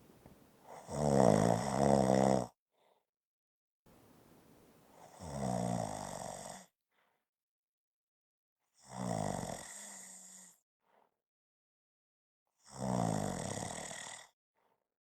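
A person snoring: four snores roughly four seconds apart, the first the loudest. The first two start with a softer breath in.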